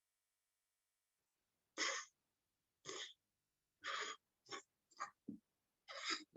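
Short, breathy hisses of air, about seven in the last four and a half seconds: a voiceless fricative such as /f/, air pushed between lower lip and upper teeth.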